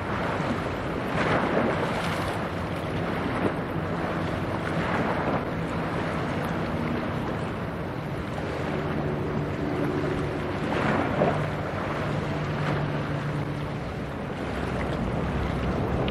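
A passing cargo ship's engine running as a low, steady hum, clearer in the second half. Wind gusts on the microphone and water wash over it.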